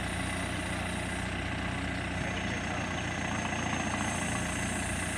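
Backhoe loader's diesel engine idling steadily.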